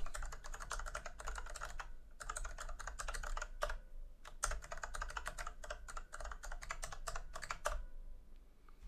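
Fast typing on a computer keyboard: three quick runs of keystrokes with two short pauses between them, stopping about a second before the end.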